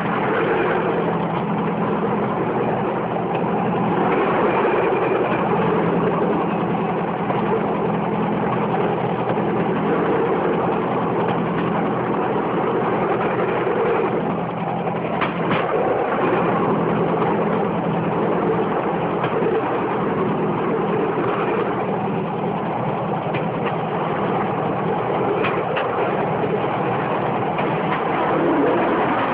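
Bamboo train running along the rails: its engine drones steadily under a constant rattle of the platform and wheels. A few sharp clacks of the wheels on the track come about halfway through and again near the end.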